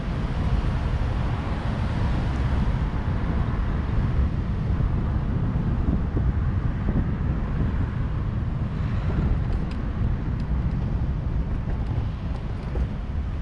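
Wind buffeting a GoPro action camera's microphone, a steady low rumble that fluctuates throughout, with a few faint ticks about two-thirds of the way in.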